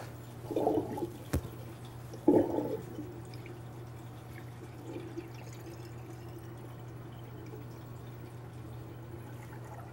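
Water in a bathroom sink stirred by hand, with two short sloshes in the first few seconds and a sharp click. The water then drains with faint drips and trickling over a steady low hum.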